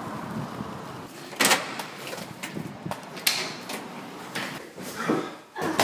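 Inline skate wheels and frames clacking over a tiled floor: a run of sharp knocks about every half second, after a second of wind noise on the microphone.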